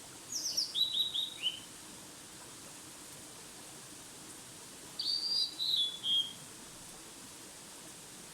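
A songbird singing two short phrases about five seconds apart, each a quick run of high notes stepping down in pitch, over a faint steady hiss.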